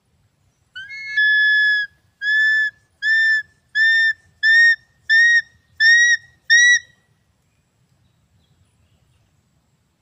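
Eagle calling: a loud series of eight high, clear notes, the first long and the next seven shorter, evenly spaced and rising slightly in pitch, over about six seconds.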